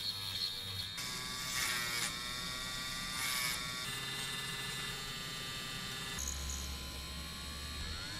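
Small Dremel rotary tool running with a steady high motor whine while a tiny plastic part spinning in its collet is shaped by hand. The whine brightens briefly twice as the part is worked, and its tone shifts a few times.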